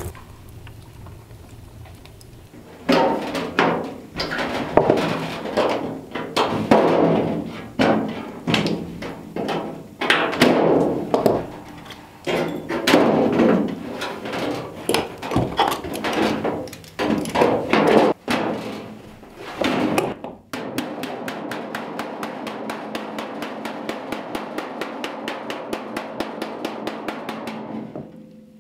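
Hand tools working a copper sink box made from copper sheet: a long string of irregular loud knocks on the copper, then a fast, even run of ticks for the last several seconds.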